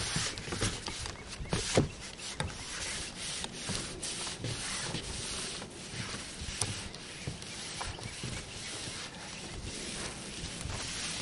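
A push broom brushing across rubber roofing membrane while long-handled applicators spread white adhesive over OSB roof decking: a steady scratchy rubbing with scattered light knocks, and one sharper knock about two seconds in.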